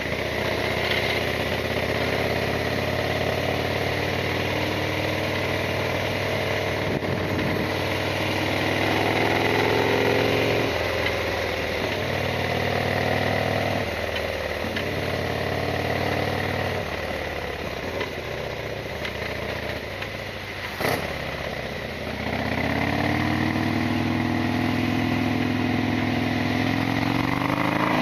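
Harley-Davidson Sportster XL1200R's air-cooled 1200 cc V-twin on the move. Its pitch climbs and then drops several times as it accelerates and shifts up. A short sharp knock comes near the end, about 21 seconds in.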